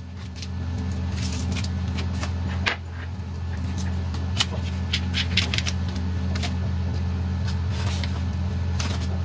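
Silicone pastry brush dabbing butter over freshly baked raisin bread in foil pans, with scattered light taps and crinkles against the foil, over a steady low hum.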